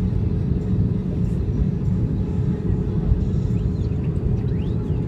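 Airbus A320 cabin noise heard from a window seat by the wing: a steady deep roar of engines and rushing air with a constant low hum, the aircraft descending on approach with its flaps extended.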